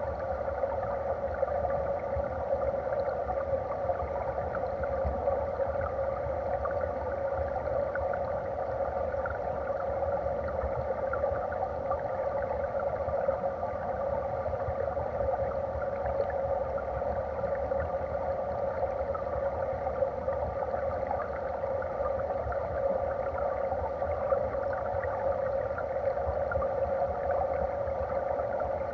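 Mountain stream water flowing past a submerged underwater camera: a steady, muffled rushing with fine crackling and a low rumble underneath.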